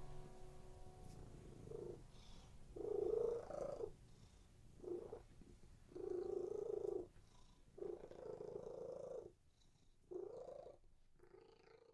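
Domestic cat purring in stretches of about a second, broken by short pauses.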